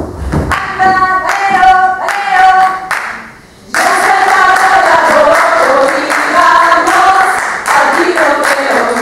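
A heavy thud at the very start, then a group of performers singing together unaccompanied, with hand-clapping; the singing becomes fuller and louder about four seconds in.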